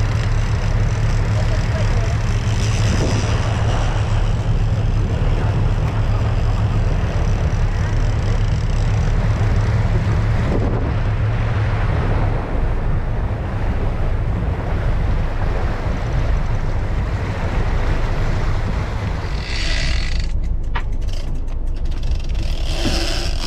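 Sportfishing boat's engine running steadily under way, with wind and water noise, its low hum easing about halfway through. Near the end come a few sharp clicks and short rushes of brighter noise.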